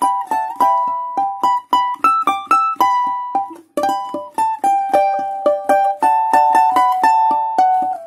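Balalaika played solo: a melody in quick plucked notes, each struck sharply and ringing briefly.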